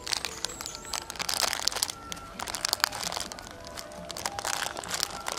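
Dense sharp crackling and crunching clicks that start suddenly, laid over quiet background music.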